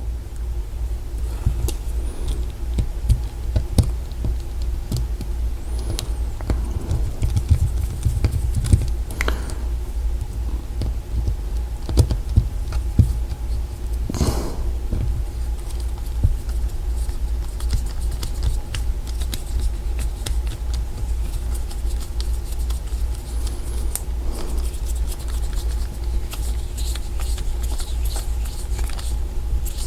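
Small metallic clicks, taps and scrapes as the cam is fitted back onto a Kwikset mortise lock cylinder, scattered and irregular over a steady low hum.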